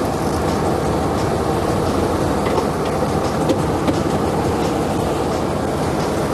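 Sportfishing boat's engines running, a steady, dense drone.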